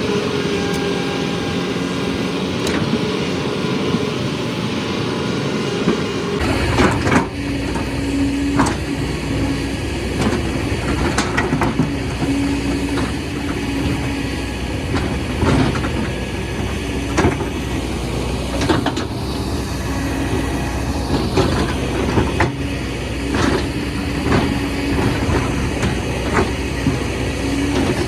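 Excavator engine running steadily, with sharp knocks and clanks every second or two. About six seconds in, the sound changes abruptly and becomes deeper and fuller.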